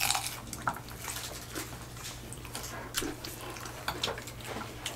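Eating sounds: scattered short smacks and clicks of chewing tacos and sipping from cups.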